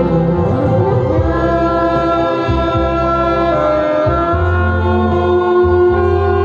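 Saxophone playing a slow melody of long held notes over amplified backing music, with a low bass line coming in about four seconds in.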